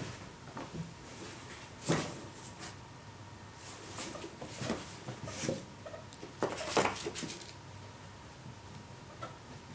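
Scuffling, bumps and thumps of a Siamese cat and a ferret play-fighting around and into a cardboard box on carpet, the box knocked and scraped in bouts: one about two seconds in, then clusters between about four and seven and a half seconds.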